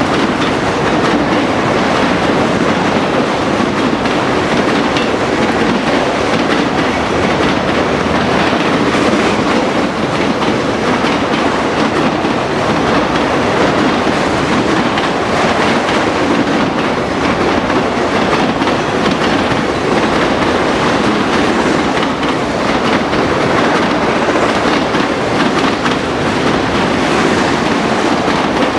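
Freight train of autorack cars rolling past: a steady, loud noise of steel wheels running on the rails, with faint repeated clicking.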